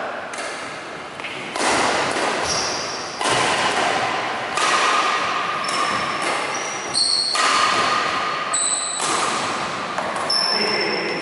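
A badminton rally on a wooden court: sharp racket strikes on the shuttlecock every second or two, each ringing out in a long hall echo, with sneakers squeaking and footsteps on the floorboards.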